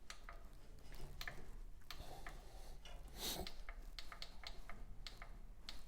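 Faint, irregular clicks and ticks, several a second, over a low hum.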